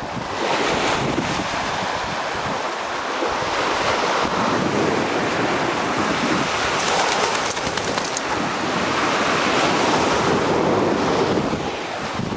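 Lake waves washing onto the shore, with wind buffeting the microphone and a brief patch of crackling about seven seconds in.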